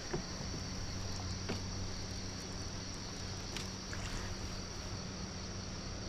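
Insects chirring steadily in the lakeside trees, over a low steady hum that starts just after the beginning, with a few faint clicks.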